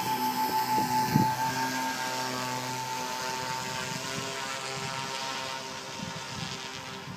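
Twin-engine RC model Cessna 310 in flight, its engines giving a steady drone that fades as the plane moves away.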